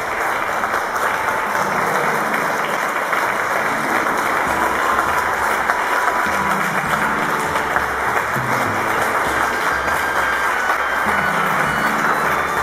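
A crowd applauding steadily, with music that has a moving bass line playing underneath.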